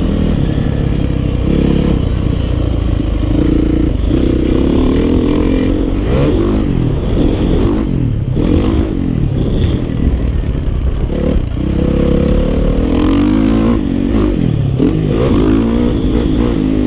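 Dirt bike engine being ridden, its pitch rising and falling again and again with the throttle.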